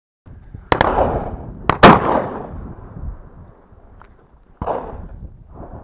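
Double-barrelled shotgun fired twice about a second apart, the second shot the louder, each report trailing off in echo. A quieter bang follows about three seconds later.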